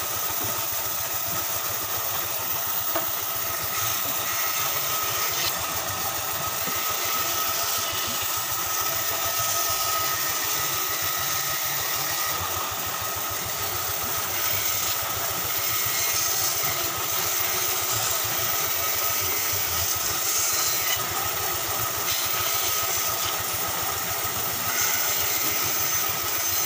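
Band saw running and cutting through a thick block of wood: a steady machine drone with a constant thin whine over it.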